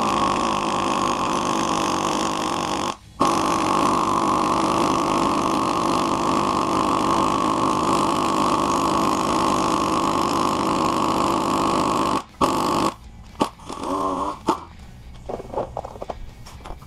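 Air impact wrench hammering on the centre bolt of a harmonic balancer puller to draw the crankshaft balancer off an LS V8. It runs in two long bursts with a brief pause about three seconds in, then cuts off and gives a few short bursts near the end.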